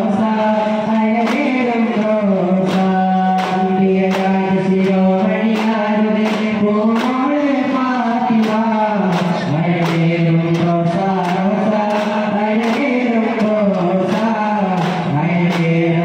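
Daff muttu: a male voice chanting a slow, held devotional melody while hand-held daf frame drums are struck in a steady rhythm of sharp beats.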